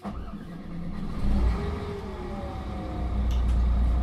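Engine of a Solaris Urbino III 12 city bus starting up: it comes in suddenly, rises briefly about a second in, then settles into a steady idle rumble.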